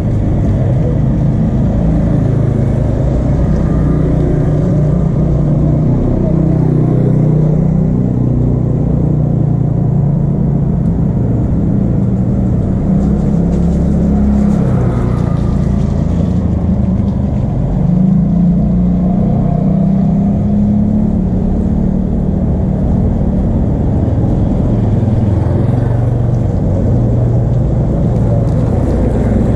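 Small motorcycle engines running and passing along the lane: a steady low drone whose pitch shifts every few seconds, with one rising-then-falling pass about halfway through.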